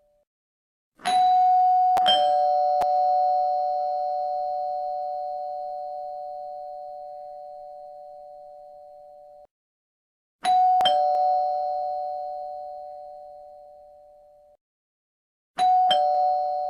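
Two-note doorbell chime ringing ding-dong three times, a higher tone then a lower one that ring on and fade. The first ring leaves about a second between its notes, the later two come quicker, and each ring is cut off abruptly.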